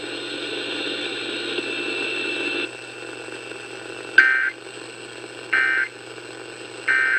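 Emergency Alert System end-of-message data bursts over AM/FM radio: three short, identical buzzy bursts of digital tones about 1.3 seconds apart, marking the end of the Amber Alert broadcast. Before them, radio static is louder for the first two and a half seconds.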